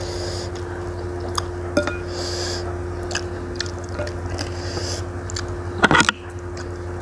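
Close-up eating sounds of a person eating meatball soup with glass noodles: chewing and wet mouth noises, small clicks of a wooden spoon against a ceramic bowl, and two short hissing breaths drawn in against the chilli heat. A louder clattering burst comes near the end, over a steady low hum.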